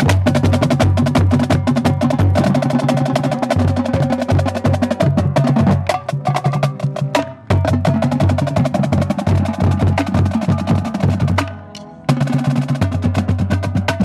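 Marching drumline battery of snare drums, tenor drums and tuned bass drums playing a fast, dense cadence. The playing drops out briefly about seven and a half seconds in and again, with a dying ring, about eleven and a half seconds in, then comes back in full.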